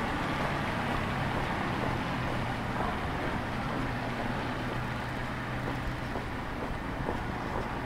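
Car driving slowly on a wet cobbled street, its engine giving a steady low hum.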